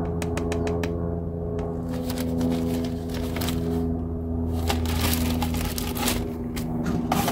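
Fast-forwarded sound of motor oil being poured from a plastic bottle through a funnel into a generator's fill port: rapid crackles and clicks over a steady hum.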